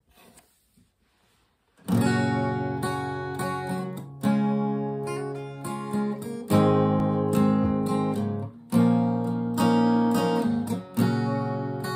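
Acoustic guitar playing the song's opening chords, starting about two seconds in after a few faint handling sounds. Each chord is struck hard about every two seconds and rings out between strokes.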